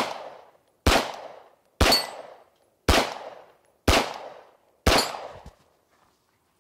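Six pistol shots fired at a steady pace of about one a second, each trailing off in a short echo.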